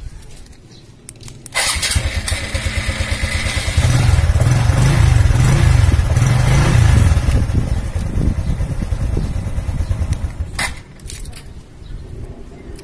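Honda RS125 Fi's single-cylinder four-stroke engine starts about a second and a half in and runs with a fast steady beat. It gets louder for a few seconds in the middle, then cuts off near the end.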